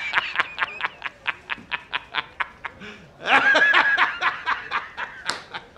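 A man laughing hysterically. Quick, even 'ha-ha-ha' bursts come about four a second, swell into a long, high-pitched peak about three seconds in, then break back into shorter laughs.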